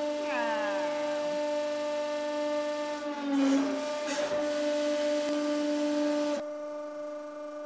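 Hydraulic press pump running with a steady hum while the ram squashes a Play-Doh figure. A falling tone comes about half a second in. A rushing hiss with a few clicks starts about three seconds in and cuts off suddenly about six seconds in, while the hum carries on.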